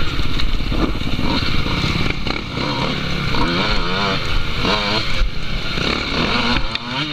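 Dirt bike engines running and revving up and down several times, the pitch rising and falling repeatedly through the middle.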